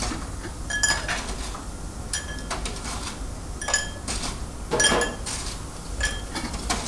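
Dishes and cutlery clinking: a run of short ringing clinks, one every second or so.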